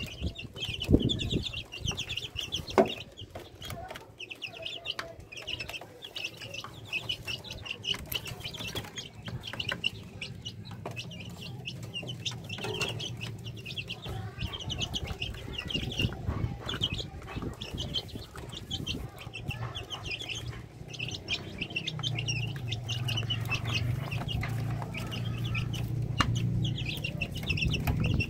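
Young kampung chicks peeping continuously in rapid, high-pitched chirps, with a couple of knocks early on and a low hum coming in near the end.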